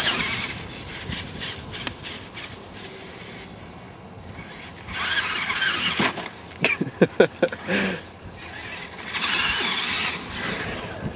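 Traxxas E-Maxx electric RC monster truck running on grass: bursts of high motor whine and tyres churning the turf as it accelerates. About six and a half seconds in comes a quick series of hard knocks, the loudest part, as the truck crashes and tumbles.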